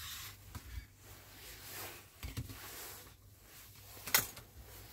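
Faint rubbing and handling noises over a steady low hum, with one sharp click about four seconds in.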